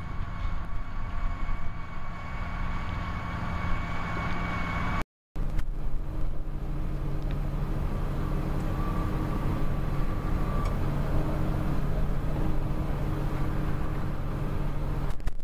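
Claas tractor's diesel engine working under load while pulling a plough, with a steady high whine. After a brief cut, a Fendt tractor's diesel engine runs at steady revs while driving a Bergmann manure spreader.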